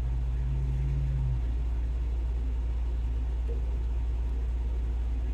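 A steady low hum, joined at first by a slightly higher hum that stops about a second and a half in.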